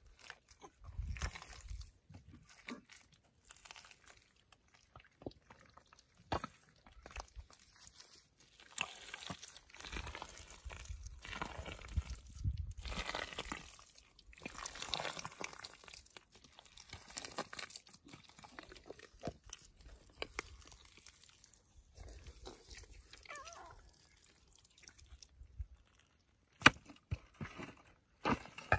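Gloved hands digging through thick wet mud, with irregular squelching, sucking and slopping. One sharp knock near the end.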